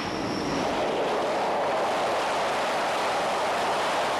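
Grumman A-6 Intruder's twin turbojet engines running loudly as it lands on a carrier deck: a steady jet rush, with a high whine that fades out in the first half-second.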